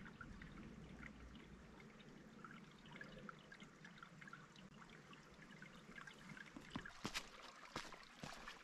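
Faint trickling and dripping water over a quiet hiss. Near the end come a few sharp knocks.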